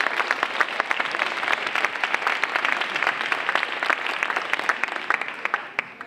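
Audience applauding, a dense patter of many hands clapping that fades away near the end.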